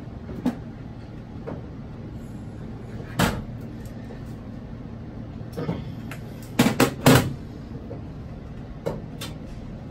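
Small hand tools, a socket and a screwdriver, clicking and knocking against a metal ELT mounting tray while a screw is taken out: a few separate knocks, with a quick run of several about two-thirds of the way through.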